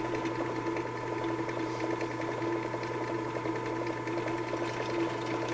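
Benchtop drill press running steadily, drilling out the rivets of a lawn tractor's starter solenoid.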